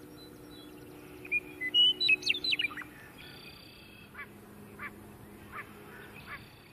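Birds calling: a flurry of quick, gliding chirps and whistles about one to three seconds in, then short downward-sliding calls repeated about every 0.7 seconds, over a faint low hum.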